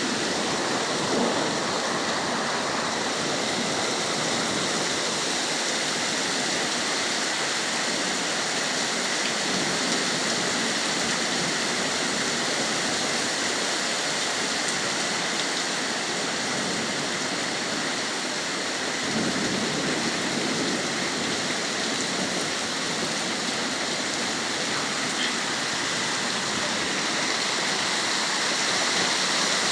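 Heavy rain pouring down in a thunderstorm: a steady, even hiss of rain on surfaces.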